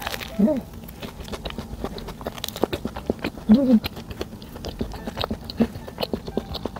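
Close-up mouth sounds of biting into and chewing an air-fried cheese bread with a crispy crust: a steady run of small crunches and wet chewing clicks. Two short voice sounds come through, about half a second in and again about three and a half seconds in.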